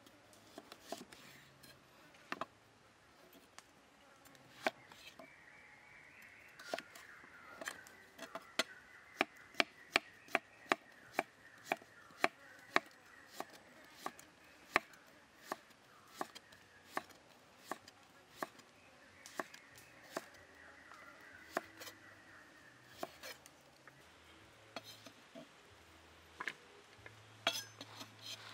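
Kitchen knife slicing a raw carrot on a round wooden chopping block: sharp knocks of the blade striking the wood. They come quickly and evenly through the middle and are sparser near the start and end.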